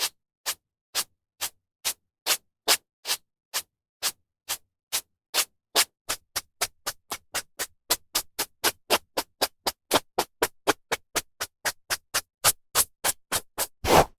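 Hairbrush strokes through hair: short, evenly spaced swishes, about two to three a second, quickening to about four a second from about six seconds in.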